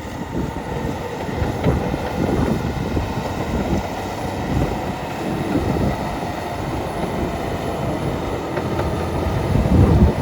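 Komatsu D65EX crawler bulldozer's diesel engine working under load as the dozer pushes dirt, with the steady rumble of its running gear.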